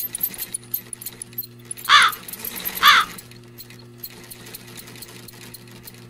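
Cartoon sound effects: a sewing machine's steady hum with light ticking, and two short crow caws about two and three seconds in.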